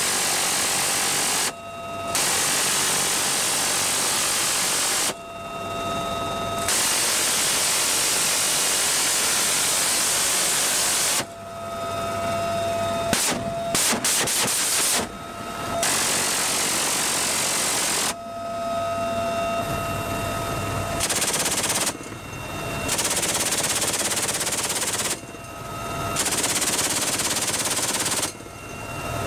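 Door-mounted machine gun firing from inside a UH-1Y Venom helicopter's cabin in a series of long, sustained bursts of a couple of seconds up to about four seconds each, with short pauses between them. In the pauses the helicopter's steady whine can be heard.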